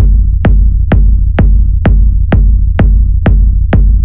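Electronic dance track: a steady four-on-the-floor kick drum, about two beats a second, over a sustained deep bass.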